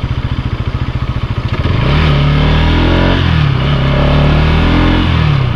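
Motorcycle engine running at low revs with an even pulse, then picking up about two seconds in, its pitch rising and falling twice as it pulls.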